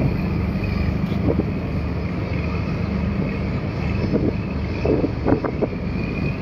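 Boat engines running with a steady low drone, with wind buffeting the microphone.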